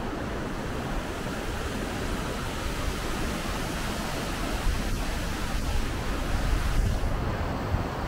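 Kegon Falls roaring: a steady rushing noise of falling water, with wind rumbling on the microphone, heaviest about five to seven seconds in.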